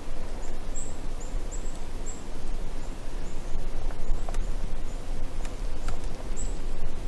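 Outdoor woodland ambience: a steady low rumble and rustle, with a run of short, thin, high chirps about twice a second throughout.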